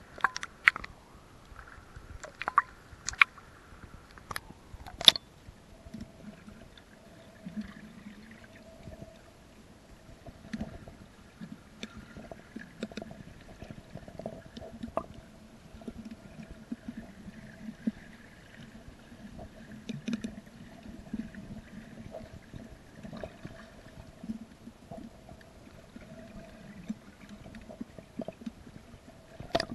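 Underwater sound from a camera in shallow sea: a few sharp knocks and splashes in the first five seconds as it breaks the surface and goes under, then a steady low hum with scattered faint crackles.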